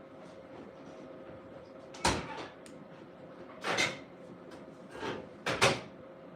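Close-miked eating noises: four or five short, sharp mouth and food sounds from biting and chewing burrito, the first about two seconds in and the loudest near the end.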